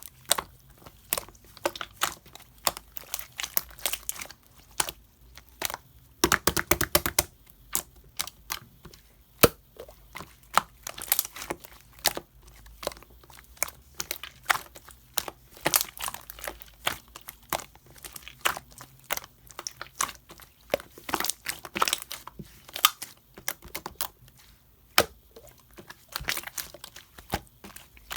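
Pink slime being kneaded with cake clay: a stream of irregular sticky clicks and crackles, with a dense run of them about six seconds in.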